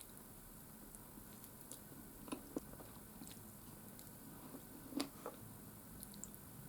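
A person chewing soft cake close to the microphone, quiet and wet, with a few sharp mouth clicks: a pair a little after two seconds in and another pair around five seconds.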